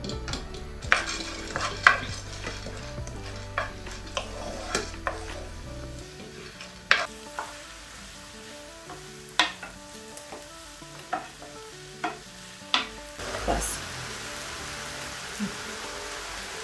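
Diced onions sizzling in a frying pan while a wooden spoon stirs them, with sharp knocks of the spoon against the pan every second or two. The sizzle grows louder near the end.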